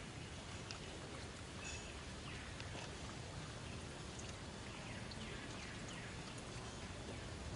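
Steady outdoor background noise with faint, short, high falling chirps now and then.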